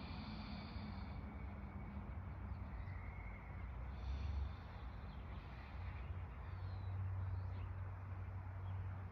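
Outdoor ambience: a steady low rumble with scattered short bird chirps and calls.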